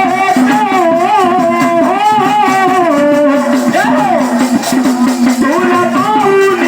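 Devotional music: a wavering, sliding melody line over continuous rattling, shaker-like percussion.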